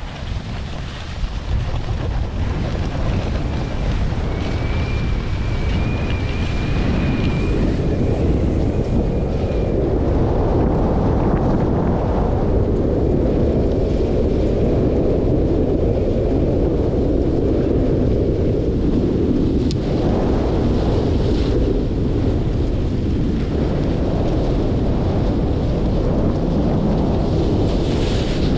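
Wind buffeting the microphone of a camera carried by a skier moving downhill: a loud, steady rushing that builds over the first couple of seconds and then holds. A faint thin whistle rides on top for a few seconds about four seconds in.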